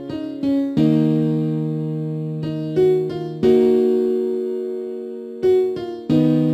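FL Studio's FL Keys piano plugin playing back a programmed melody over sustained chords, each chord struck and slowly fading, with new chords and short notes coming in every second or two.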